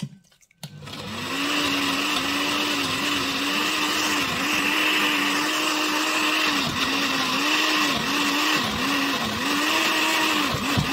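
Countertop blender with a glass jar running at speed, blending cooked shrimp and vegetables into a thick purée. It starts about half a second in, and its motor pitch dips briefly several times, mostly in the second half.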